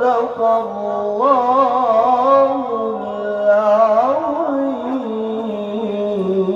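A man's voice reciting the Quran in melodic tajwid style through a microphone: one long phrase that sweeps up in pitch at the start, wavers through ornamented runs, then settles into a long held note.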